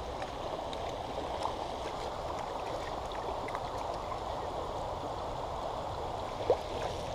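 Small river running steadily over a shallow riffle: an even rushing of water. One short sound stands out about six and a half seconds in.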